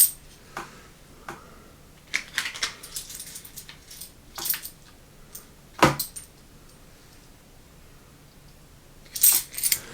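Metal board-game coins clinking and clicking together as they are handled and set down. There are scattered light clicks, one sharper clink about six seconds in, and a brief jingle near the end.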